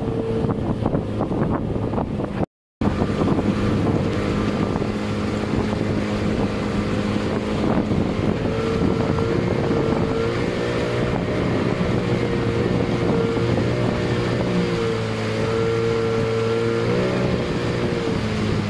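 Motorboat engine running steadily, its pitch shifting slightly a few times, with wind on the microphone. The sound cuts out for a moment about two and a half seconds in.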